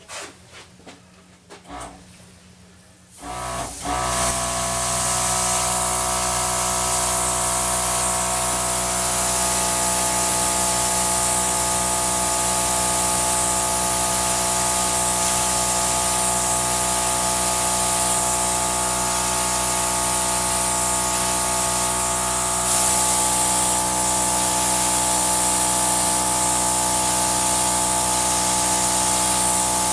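Compressed-air gun blowing a steady hiss of air over wet acrylic paint, starting about three seconds in, over a steady hum; the hiss gets a little louder about two-thirds of the way through.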